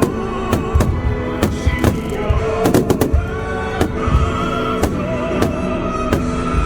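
Fireworks bursting in quick succession, a sharp bang every half second or so, over loud music playing along with the show.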